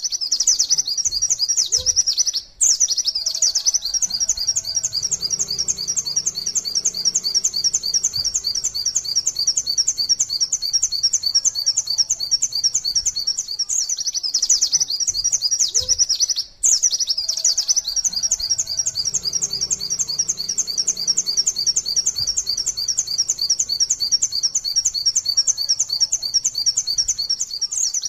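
White-eye (pleci) singing its 'nembak' song: a long, unbroken string of fast, high chirping notes. The song cuts out for an instant twice, about two and a half seconds in and again past the middle.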